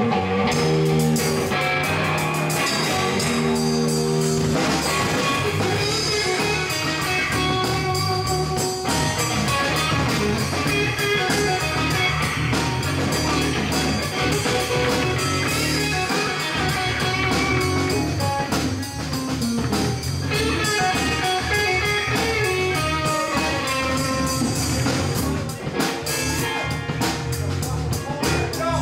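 A live band playing a blues tune: electric guitar and electric bass over a drum kit, played steadily without a break.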